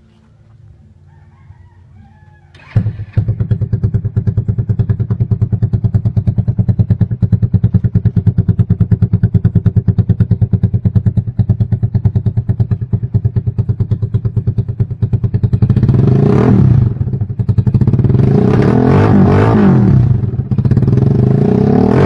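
Neptune 125 motorcycle engine starting about three seconds in, running at a steady idle through its chrome exhaust, then revved up and down several times over the last six seconds.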